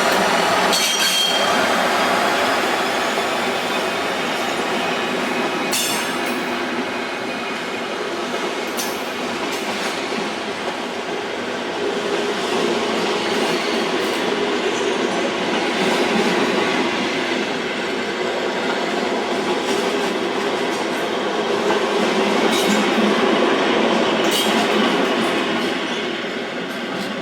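Train running on the rails: a steady rumble with high wheel squeal near the start and a few sharp clicks from the wheels over rail joints.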